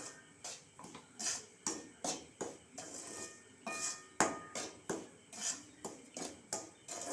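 A spoon scraping and clinking against a pan in quick, uneven strokes, stirring ragi flour as it dry-roasts.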